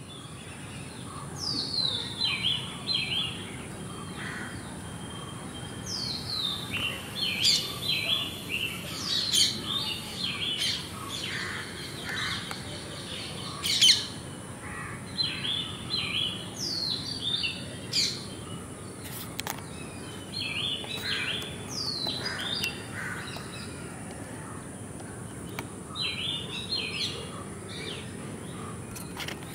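Small birds singing short, chirping phrases that fall in pitch, repeated every few seconds over a steady low background noise, with one sharp tick about halfway through.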